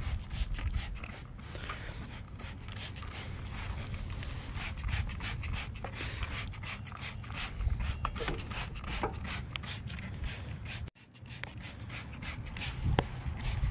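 Plastic trigger spray bottle pumped over and over, a long run of short, hissing spritzes of degreaser onto a mower deck, with a low rumble underneath.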